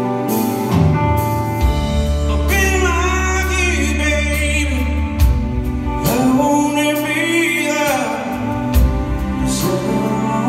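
Live blues-rock band playing, with electric guitars, bass and drums. A male singer sings two long phrases with vibrato over it, the first starting about two and a half seconds in and the second about six seconds in.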